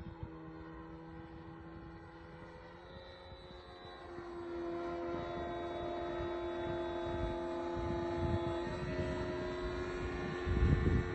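Motor and propeller of a Pilot-RC Laser 67-inch radio-controlled aerobatic plane in flight, a steady droning note. It gets louder and a little higher about four seconds in. Wind rumbles on the microphone near the end.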